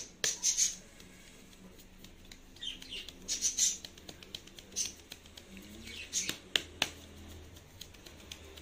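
Flour being rubbed by hand through the mesh of a round sieve over a stainless steel bowl: short spells of scratchy swishing, with a couple of sharp taps of the sieve about two-thirds of the way through.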